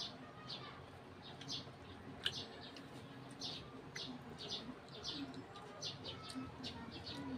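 Small birds chirping repeatedly in the background, short high chirps several times a second, with one sharp click a little after two seconds in.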